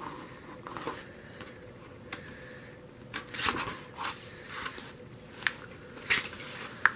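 Pages of a hardcover photobook being turned and handled: a series of short paper rustles and flaps, with a sharp page snap near the end.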